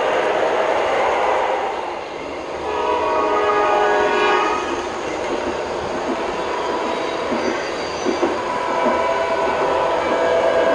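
Lionel O-gauge Acela model train running along the track, with a steady rolling rumble, while its onboard sound system blows the horn, a chord held for a couple of seconds starting about two and a half seconds in. A horn tone sounds again over the last few seconds.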